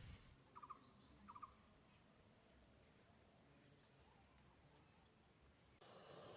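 Faint, steady high-pitched insect trill of the kind crickets make, with two short chirps about half a second apart early on. The trill cuts off abruptly near the end, where a different, hissier background begins.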